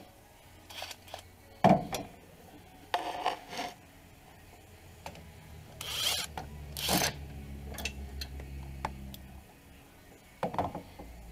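Socket ratchet on a swivel extension turning an engine mount bolt, with metal clicks, clinks and scrapes of tools against the bolt and mount. There is a loud knock a little under two seconds in and two short ratcheting bursts about six and seven seconds in.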